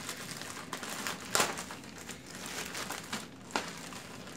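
Thin clear plastic packing bag crinkling and rustling as hands dig through it and pull out the contents, with a sharper crackle about a second and a half in.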